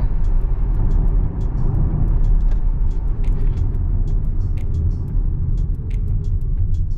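Steady low road and tyre noise inside a Tesla electric car's cabin, rolling on a wet road as the car slows, with scattered light ticks.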